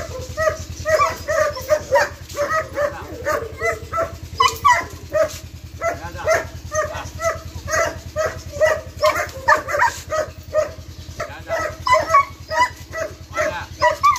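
Long-haired German Shepherd barking over and over at a quick, even pace, about three barks a second, lunging on its leash at a man who is provoking it.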